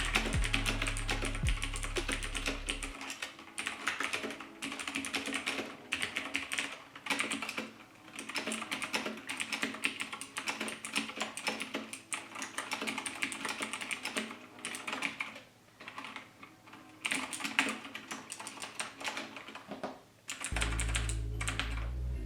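Typing on an RN-K125 mechanical keyboard with clicky blue Gateron switches: rapid runs of sharp keystroke clicks, broken by short pauses.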